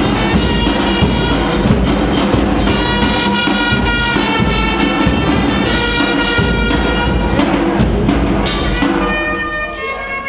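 Several trumpets playing held notes together, over a regular drum beat. The playing eases off slightly near the end.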